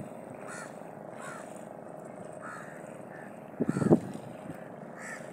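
Short bird calls every second or so over a steady hum, with a brief cluster of loud thumps about four seconds in.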